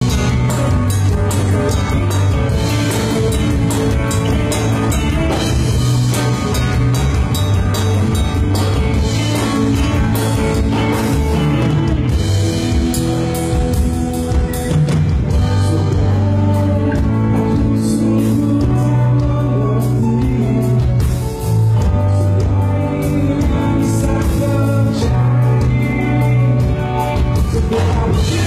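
A rock band playing live: electric guitars, bass and drum kit, with a singer's vocals over them. The music runs continuously, with a brief drop in level about 21 seconds in.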